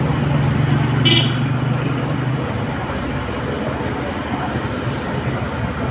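Steady road traffic noise, with a low vehicle engine hum for the first two seconds or so and one short sharp sound about a second in.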